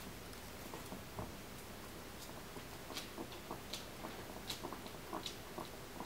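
Guinea pig chewing, its teeth making irregular small clicks a few times a second, more often after about two seconds; this guinea pig has dental malocclusion.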